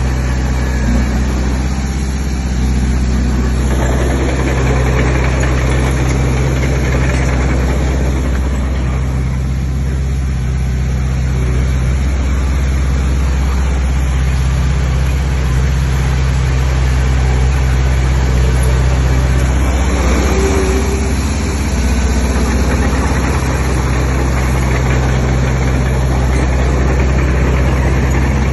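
Heavy diesel engine of earthmoving machinery running steadily. Its low note shifts in strength every few seconds.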